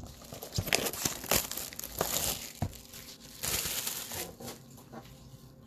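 Plastic shrink wrap being torn and crumpled by hand off a sealed trading-card box: irregular crinkling and crackling with a few sharp snaps, busiest in the middle.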